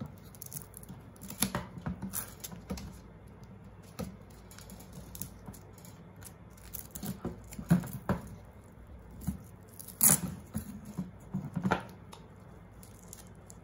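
Hands handling a GoPro Session camera and its foam pad while pressing it into a drone's camera mount: scattered soft clicks, taps and rustles.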